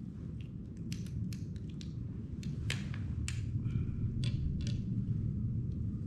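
A series of sharp metallic clicks from surgical instruments being handled during a horse castration, thickest in the middle of the stretch, over a steady low rumble.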